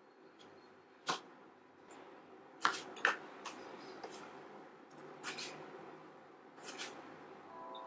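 Kitchen knife knocking on a plastic cutting board in a handful of sharp, irregular clicks as a lemon is sliced, the knife is set down and cherry tomatoes are handled.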